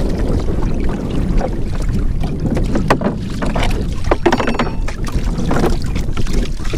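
Wooden rowing dinghy being rowed, with a few hollow knocks and a creak from the oars in their rowlocks over water sloshing at the hull. Wind is buffeting the microphone.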